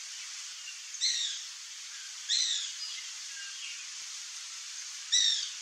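Whistling heron giving three short, high whistled calls, each falling slightly in pitch, the last the loudest, over a steady background hiss.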